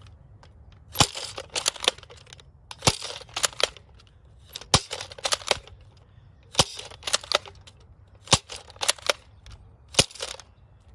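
Nerf N-Strike Maverick spring-plunger blaster firing Whistler darts, six sharp shots about every two seconds. Each shot comes with a quick run of plastic clacks from priming the slide and turning the cylinder.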